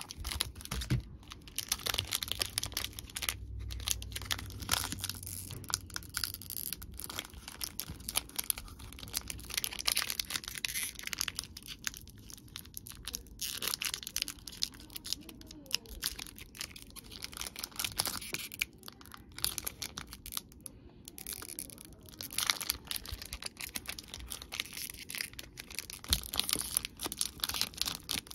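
Foil Pokémon booster pack wrappers crinkling and tearing open by hand: an irregular run of sharp crackles and rips.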